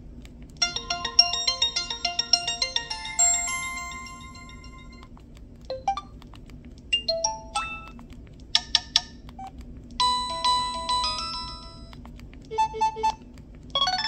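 Preloaded ringtones of an LG Revere Black Edition flip phone previewed one after another through its small speaker: a dense chiming melody for the first few seconds, then short sparse plinks and pitch glides, a few quick knock-like strokes past the middle, and further brief tone patterns. Each one breaks off abruptly as the next tone in the list is selected.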